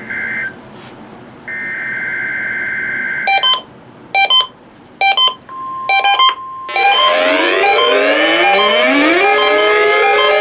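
Emergency Alert System weekly test coming in on a weather radio: the end of one raspy digital header burst, then a second one lasting about two seconds, followed by four short beeps. A steady alert tone joins the last beeps, and from about two-thirds of the way in a loud, dense alarm of rising, siren-like glides and steady tones sounds without a break.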